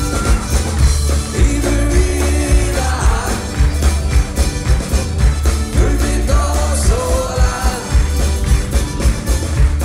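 Live band playing a song on acoustic guitars, electric bass and accordion, with a steady bass-driven beat and a melody line on top.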